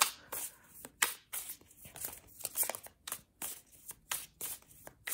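A deck of tarot cards being shuffled by hand: an irregular run of short card snaps and slides, several a second.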